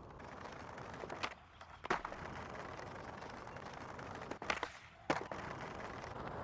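Skateboard wheels rolling on concrete, broken by several sharp clacks of the board popping and landing, the loudest about two seconds in and about five seconds in.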